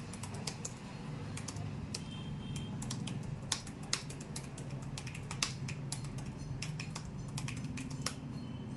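Fast typing on the ASUS Vivobook S14 OLED laptop's keyboard: irregular key clicks, several a second, over a low steady hum.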